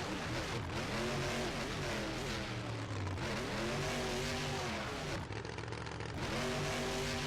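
Vehicle engine revved again and again, its pitch climbing and dropping back roughly every second or two.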